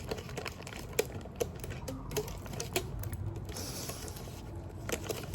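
Scattered light clicks and taps from utensils and food packaging being handled during sandwich making, with a short hiss about three and a half seconds in.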